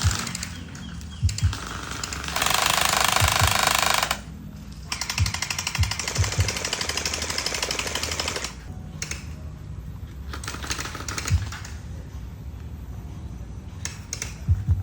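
Gel blasters firing on full auto in long rattling bursts: one loud burst about two and a half seconds in, a longer one from about five seconds, then shorter bursts, with scattered low thumps between them.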